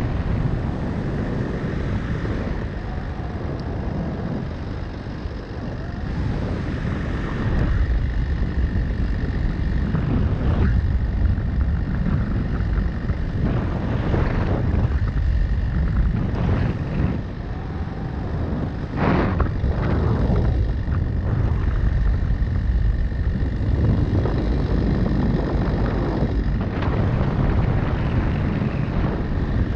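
Wind rushing over the camera's microphone in flight, a steady rush that swells and drops in gusts, with a faint steady high tone under it.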